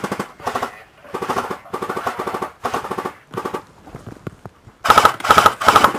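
Airsoft electric machine gun, an A&K M249 Para, firing bursts on full auto with a rapid buzzing clatter. Several bursts come in the first half, then a pause of about a second, then the loudest bursts near the end.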